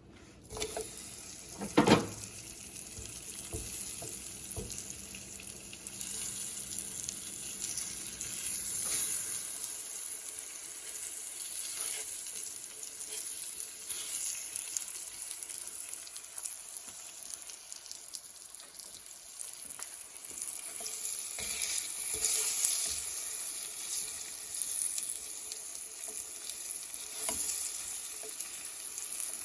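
Thin green plantain slices sizzling as they fry in melted butter in a pan, with one short loud knock about two seconds in.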